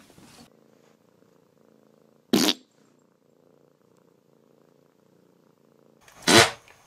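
A cat purring softly and steadily, broken twice by a short, loud burst of noise about four seconds apart.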